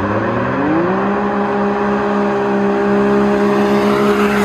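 Two turbocharged Can-Am Maverick X3 side-by-sides at full throttle in a drag race, coming toward the camera and passing it. The engine pitch climbs through the first second, then holds steady at high revs while growing louder, and starts to drop at the very end as they go by.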